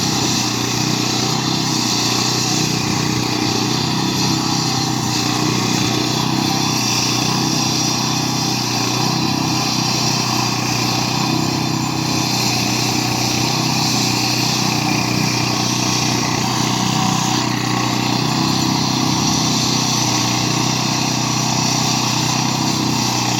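Engine-driven concrete saw running steadily while cutting a crack-control joint in concrete, a constant, unbroken engine drone.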